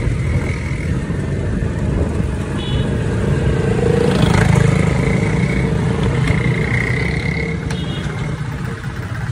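Motorcycle ride: a steady engine drone with wind rumbling on the microphone, swelling a little in the middle.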